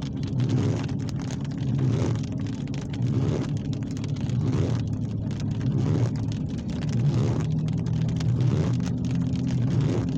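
Heavy thunderstorm rain falling steadily, with a constant low hum underneath.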